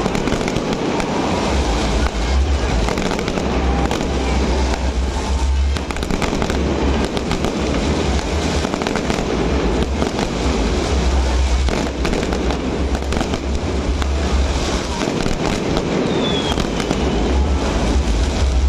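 A fireworks display bursting without let-up: a dense rapid crackle of many small pops over a continuous deep booming of shell bursts.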